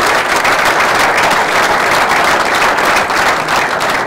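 Audience applauding loudly, many hands clapping at once.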